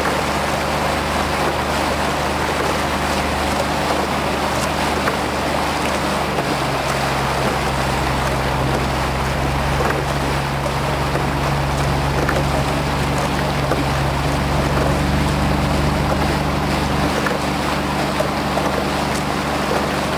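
Outboard motor of a small launch running steadily, with wind and water noise. The motor's hum shifts slightly in pitch about a third of the way in and again about three-quarters of the way through.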